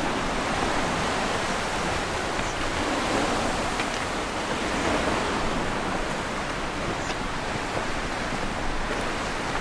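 Sea waves washing ashore: a steady rushing with gentle swells in loudness.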